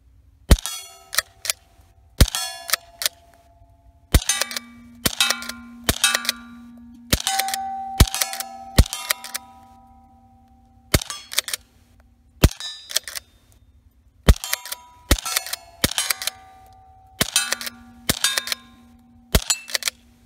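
Remington 572 Fieldmaster pump-action .22 fired over and over with CCI CB shorts: each shot is only a small crack, and the clack of the pump slide being racked between shots is about as loud as the firing. Some of the clicks leave a short metallic ring.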